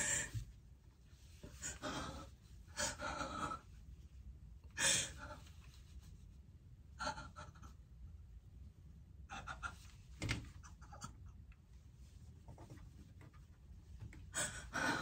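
A woman gasping and breathing hard in shock: a series of short, breathy gasps, some with a faint voice in them, with quieter pauses between.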